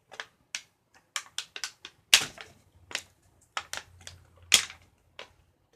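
Hard plastic toy parts and packaging being handled, with irregular clicks and taps and two louder snaps, about two seconds in and near the end.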